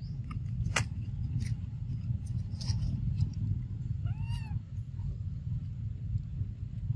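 A baby macaque gives one short, arching, squeaky cry about four seconds in, like a small meow. A steady low rumble runs underneath, with a few sharp ticks in the first seconds.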